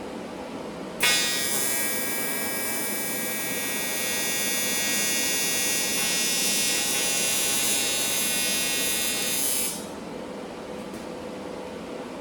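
AC TIG welding arc on aluminum from a Primeweld 225, a steady high buzz that strikes abruptly about a second in and cuts off sharply near the end.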